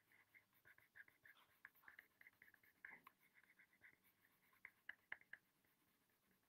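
Faint scratching of a coloured pencil shading on paper, a quick irregular run of short strokes that thins out near the end.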